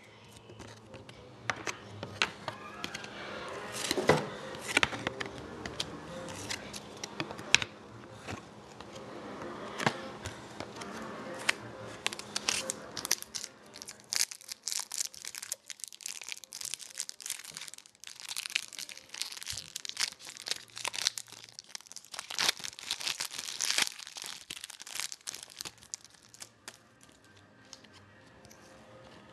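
Foil trading-card pack wrappers crinkling and tearing open, with cards handled and flicked between the fingers, in a long run of irregular crackles and sharp snaps. Faint music plays underneath.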